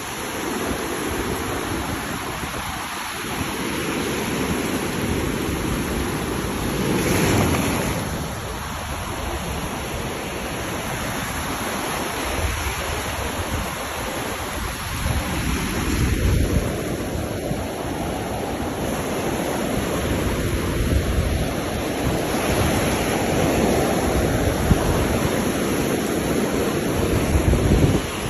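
Ocean surf breaking and washing on a beach, a continuous rushing with slow swells and a louder surge about seven seconds in.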